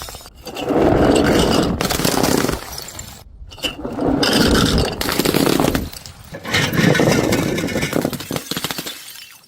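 A string of short crunching and scraping noises as objects are smashed and crushed, each lasting a second or two and cut off abruptly into the next, about six in all.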